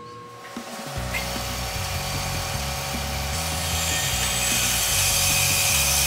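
A power tool cutting into a steel shaft, starting about a second in and getting louder and harsher from about halfway, with background music underneath.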